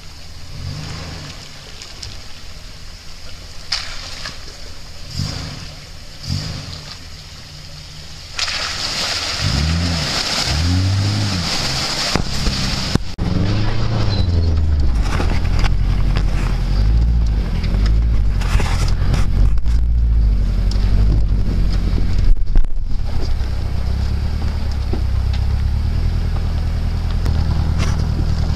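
Subaru four-wheel-drive engines working off-road. First an engine revs up and down in bursts as the car pushes through muddy holes. Then, about halfway through, a louder, steadier engine drone is heard from inside a modified turbocharged Subaru Liberty on a rocky track, with occasional knocks and bumps.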